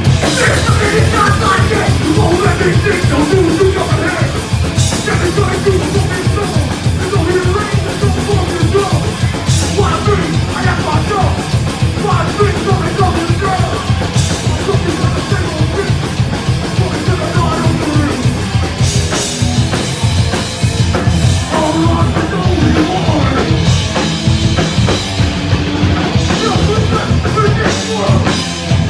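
Hardcore punk band playing live: distorted guitars, bass and fast drumming, with the vocalist yelling into the microphone.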